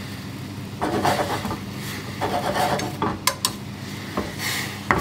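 Prawn pieces being added to and stirred in broth in a hammered aluminium saucepan: soft splashing and scraping, with two sharp metal clinks against the pan a little after three seconds in. A steady low hum runs underneath.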